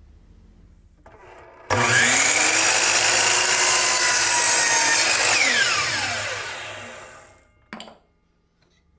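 Miter saw starting abruptly and cutting through a 1x board for a few seconds. The trigger is then released and the blade winds down with a falling whine, and a short knock follows.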